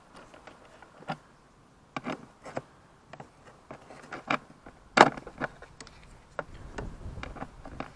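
Irregular metal clicks and clinks of a ratchet, extension and socket being worked on 10 mm bolts, with the sharpest clack about five seconds in. Wind rumbles on the microphone in the last second or so.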